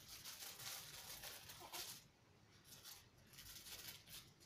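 Faint rustling of a small plastic packet of gel pen refills being handled, in short uneven scrapes, nearly silent in a gap about two seconds in.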